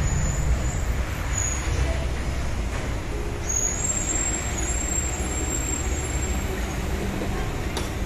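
Perkins diesel generator engine running steadily at constant speed: an even low rumble.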